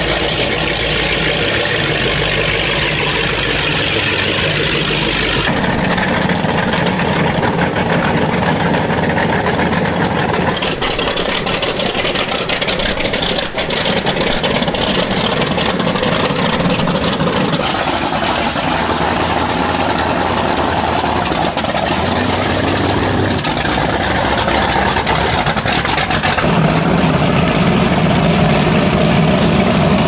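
Performance powerboat engines idling through their exhausts, one boat after another, the engine note changing abruptly at each cut from boat to boat.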